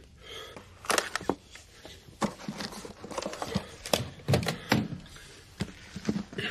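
A black telephone being handled on a carpeted floor: irregular knocks and clatters of its plastic body and handset, loudest about a second in and again around four to five seconds in.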